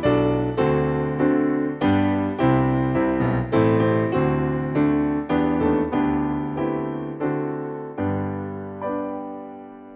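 Background piano music: gentle chords struck roughly every half second to second, each dying away, with a last chord about nine seconds in left to fade.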